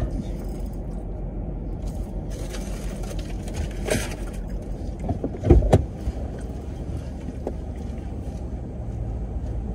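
Steady low rumble in a car's cabin, with a sharp thump about five and a half seconds in as the driver's door is opened.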